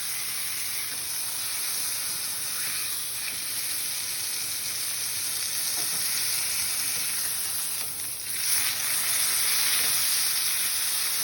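Beef steak sizzling in a hot frying pan, a steady hiss that grows a little louder about eight seconds in.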